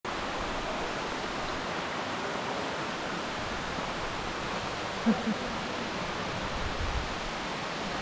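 Steady, even rush of a tall waterfall pouring down a rock gorge. About five seconds in, two short louder sounds briefly stand out over it.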